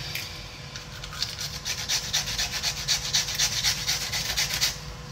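Kitchen knife cutting through a green pepper held in the hand, in quick rhythmic strokes of about five a second. The strokes start about a second in and stop near the end.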